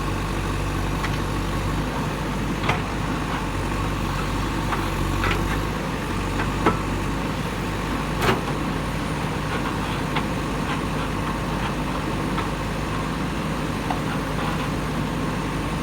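Diesel engine of a JCB 3DX Super backhoe loader running steadily, with a few sharp knocks scattered through, the loudest about seven and eight seconds in.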